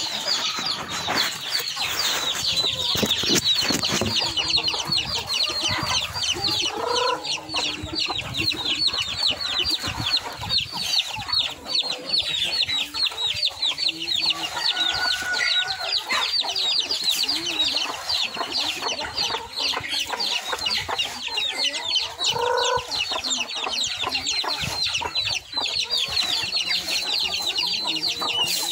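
A flock of young chickens clucking as they feed, over a constant stream of quick high chirps, with a couple of louder, lower calls about 7 and 22 seconds in.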